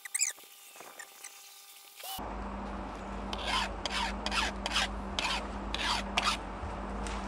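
Hand file being stroked across a chainsaw chain's cutters to sharpen it: a regular rasping scrape, about two to three strokes a second, starting a few seconds in.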